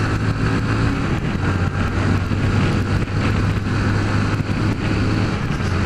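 Honda CG 150 Fan's single-cylinder four-stroke engine running at a steady road speed, with wind rushing over the handlebar-mounted microphone.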